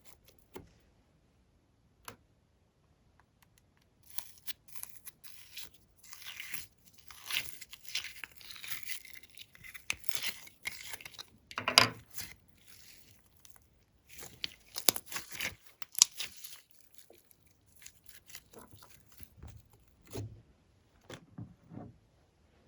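Glossy slime being stretched and pressed by hand, giving irregular sticky crackles, pops and tearing sounds in clusters with short quiet gaps; the loudest snap comes about halfway through.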